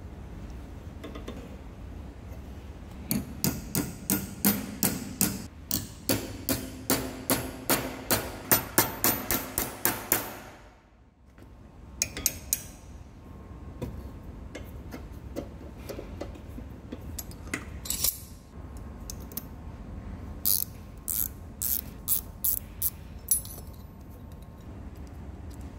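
Hammer blows on a brass strip bolted to a steel lathe-chuck hard jaw, forming the strip down over the jaw's face. A quick run of ringing metal strikes, about two a second, is followed after a brief pause by lighter, scattered taps and knocks.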